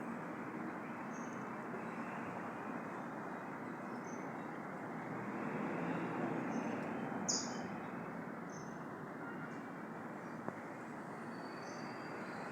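Short, high bird chirps scattered about every second or two over a steady rushing background noise, which swells a little about halfway through; the loudest chirp comes about seven seconds in.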